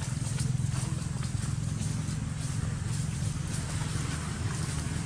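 Steady low motor hum, like an engine running at an even speed, with faint scattered clicks above it.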